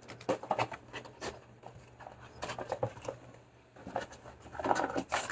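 Packaging being handled: a run of irregular rustles, taps and clicks as spare keycaps and the manual are taken out of a keyboard box, busiest near the end.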